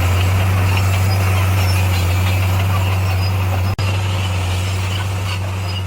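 Bulldozer diesel engine running steadily with a deep, even hum, broken by a split-second dropout a little past halfway.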